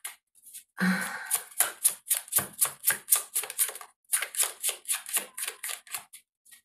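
Tarot cards being shuffled by hand: quick, crisp card snaps, about six a second, in three runs broken by short pauses.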